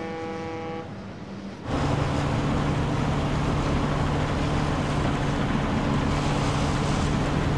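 A short steady horn-like tone ending about a second in. Then, suddenly, about two seconds in, a steady engine drone with rushing noise, as from a departing vehicle or boat.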